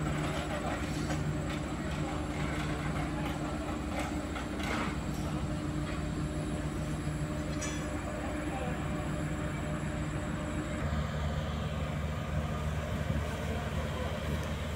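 Engine of a Cometto girder transporter running steadily, a low, even drone; about eleven seconds in it changes to a deeper hum.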